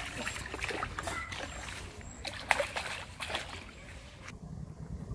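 A hooked fish thrashing at the water's surface: a quick run of splashes, the loudest about two and a half seconds in, stopping about four seconds in.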